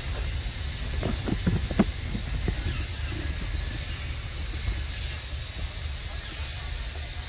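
Steady hiss over a low rumble, with a handful of short knocks or rustles between about one and two seconds in, the loudest near two seconds.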